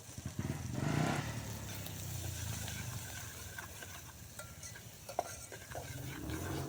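Food cooking in a pan on a camp stove: a spoon stirring and scraping with light sizzling, and scattered clicks over a low steady hum.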